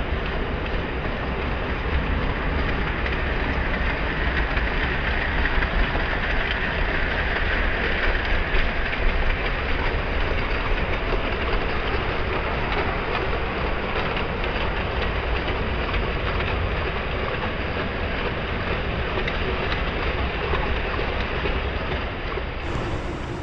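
Model train running along a layout's track, a steady, even whir.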